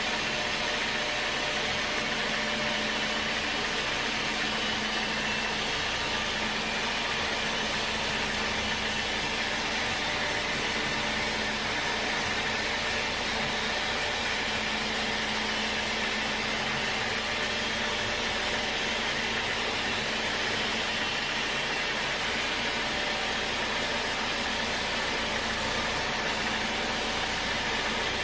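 Sawmill machinery running steadily: an even rushing noise with a constant low hum that does not change.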